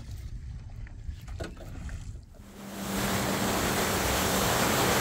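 Boat running under power: a loud, even rush of wind and water with a steady engine hum, which comes in about two and a half seconds in after a quiet stretch with a few faint clicks.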